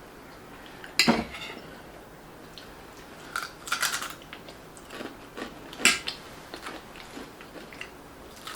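Close-up eating sounds: a few short, sharp clicks of cutlery against plates, the loudest about a second in, with quieter chewing between them.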